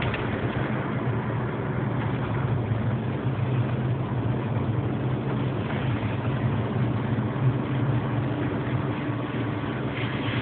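Steady engine drone and road noise of a moving car, heard from inside the cabin.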